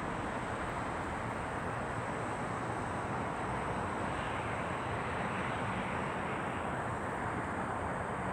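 Steady outdoor background noise: an even rumble and hiss with no siren tone sounding.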